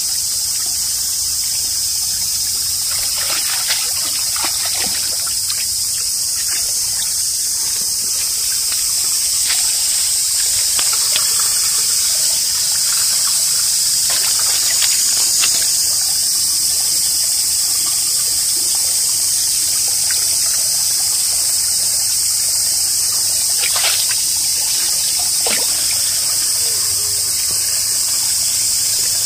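Shallow stream water trickling steadily, with scattered splashes as an Airedale Terrier wades through it.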